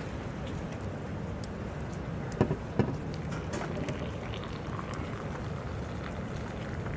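Sleet pattering steadily, with many small scattered ticks and two sharper knocks about two and a half seconds in.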